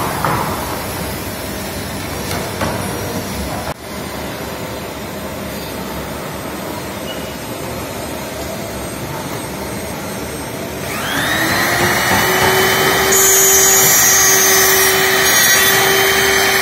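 Workshop power tools: a hand-held power saw running through wood, then steady machine noise. About eleven seconds in, an electric router spins up and holds a loud, steady high whine, the loudest sound here.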